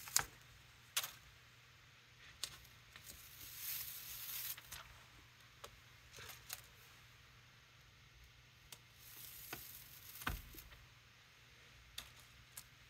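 Soft peeling and rustling with scattered light clicks as stencils are lifted off a tacky, paint-coated gel plate and laid aside, with two brief hissy swells about four seconds and nine seconds in.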